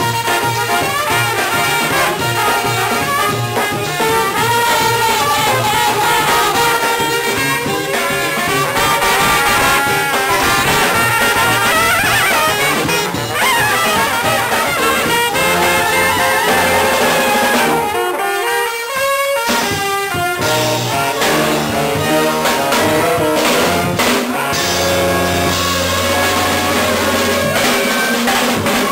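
A live brass band playing an up-tempo tune: trombone, trumpets and saxophone over sousaphone and drums. The low instruments drop out for about a second roughly two-thirds of the way through, then come back in.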